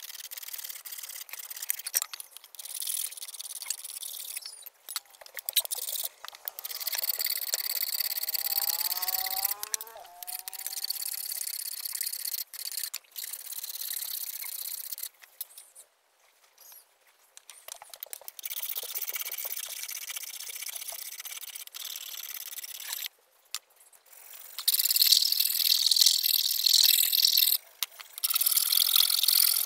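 Hand file rasping along a small iron blade held in a wooden block, in runs of strokes with short pauses, the strokes louder near the end. A short call rising in pitch sounds in the background about nine seconds in.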